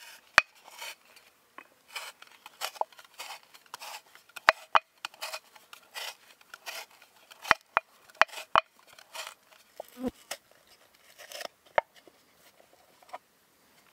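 A raw potato on a wooden skewer being turned through a homemade wooden spiral cutter: irregular crisp scraping as it is cut into a spiral, broken by sharp clicks of wood on wood.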